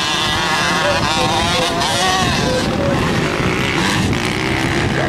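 Several motocross bikes racing together, their engines revving, the pitch rising and falling as the riders work the throttle.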